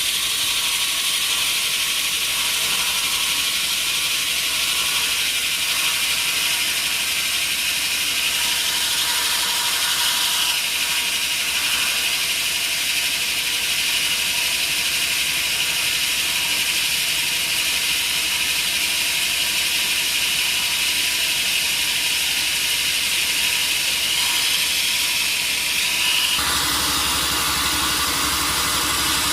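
Sawmill saw blade cutting through a teak log: a steady high hiss with a thin steady tone. Near the end the cutting stops, leaving the mill's engine running at a lower pitch.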